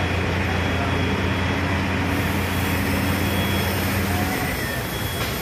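A large engine running with a steady low hum under a continuous rushing noise; the hum stops about four seconds in.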